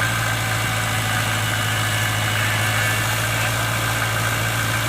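Heavy machine engine running steadily at a constant speed, with a deep, even hum.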